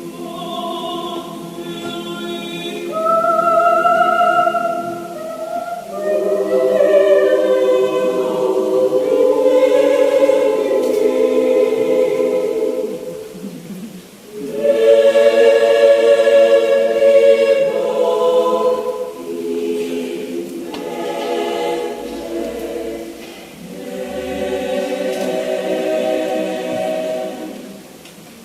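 Mixed adult church choir singing in several parts, in long sustained phrases, with a brief breath break about halfway through.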